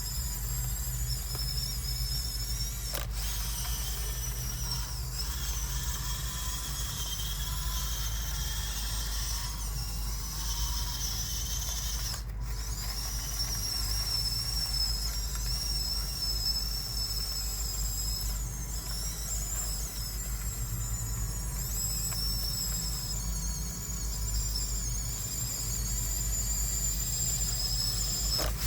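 Huina 1554 RC bulldozer's small electric motors and gearboxes whining as it drives and pushes sand, the high whine shifting in pitch as it works, with a gear and track ratcheting.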